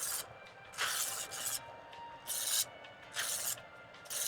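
Knife blade drawn again and again through the grinding slots of a Chef'sChoice 15XV electric knife sharpener, its motor-driven abrasive wheels grinding metal off a dull edge. Short rasping strokes come roughly once a second, each under a second long.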